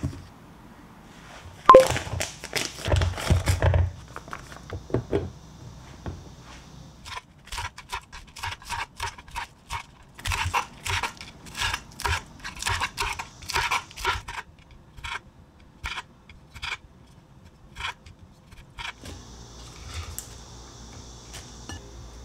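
A plastic food-storage lid is pressed and snapped shut about two seconds in. Then a chef's knife cuts lettuce on a cutting board in a long, fairly even run of short chopping strokes that thin out toward the end.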